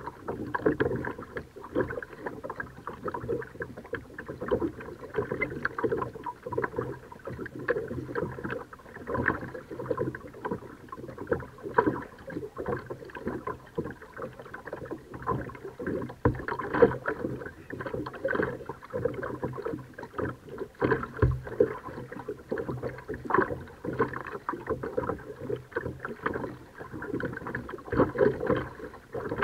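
Kayak paddling on calm water: a constant, uneven crackle of small splashes and drips from the paddle and water against the hull.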